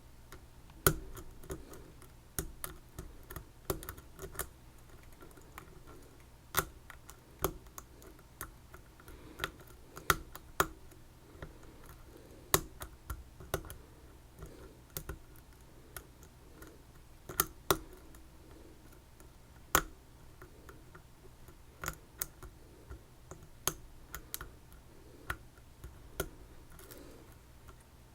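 Irregular sharp metallic clicks of lock picks working the pins of an Assa Twin 6000 lock cylinder, several scattered clicks a second with an occasional louder one.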